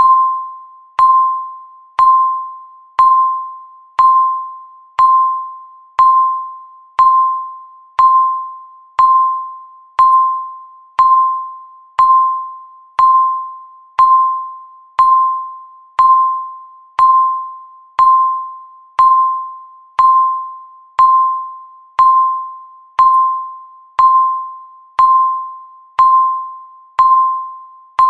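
Countdown timer's electronic tick: a short ding at one steady pitch, once a second, each one starting sharply and dying away before the next.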